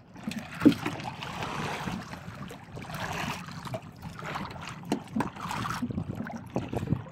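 Water sloshing against a small boat's hull, with wind on the microphone and a few sharp knocks on the boat.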